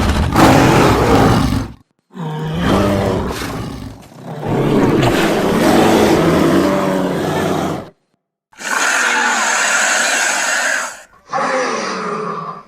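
Manticore creature sound effects: five separate roars and growls with short silences between them, the third the longest, the last two higher and hissier with a falling pitch.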